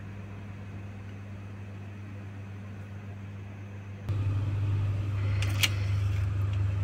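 A steady low hum, which gets louder about four seconds in, with one sharp click a second and a half later.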